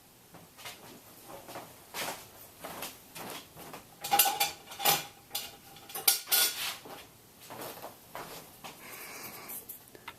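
A tool clicking and scraping against the plastic casing of an HP Mini 210 netbook as a small cover is pried open, in irregular clicks and scrapes that are loudest about halfway through, with a brief squeak.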